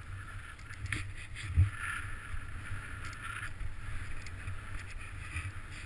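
Hiss and scrape of sliding downhill over snow, with wind rumbling on the microphone and a single thump about one and a half seconds in.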